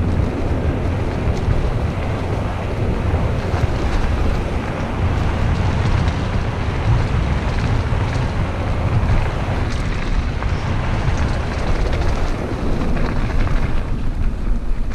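Wind buffeting the microphone of a camera riding on a mountain bike descending a dirt trail, mixed with the tyres rolling over dirt and a few knocks from the bike.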